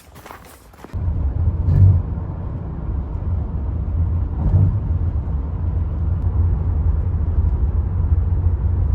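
A loud, low rumble starts abruptly about a second in and continues steadily, with two brief swells.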